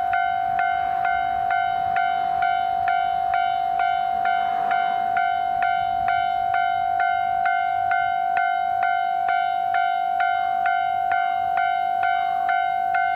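Japanese railway level-crossing warning bell ringing: an electronic clang repeating evenly about twice a second over a steady ringing tone.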